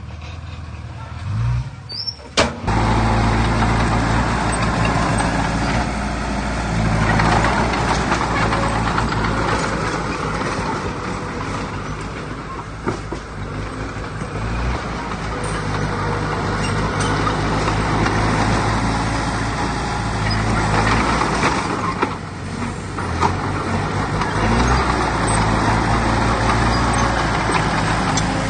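Diesel engine of heavy earthmoving machinery running hard, coming in abruptly about two seconds in, its note rising and falling as the machine works.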